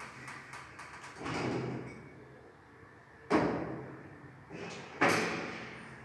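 Doors of a 1968 passenger lift with a hinged landing door, heard at the landing: light clicking, a short swelling rumble, then two loud clunks about a second and a half apart, each dying away.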